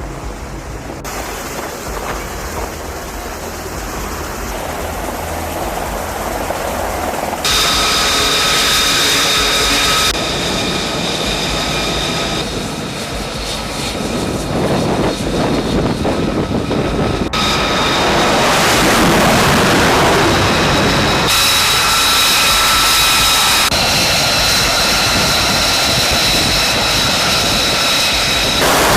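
Jet aircraft engines running with a high-pitched whine over a loud rush of noise, in several clips that cut abruptly from one to the next.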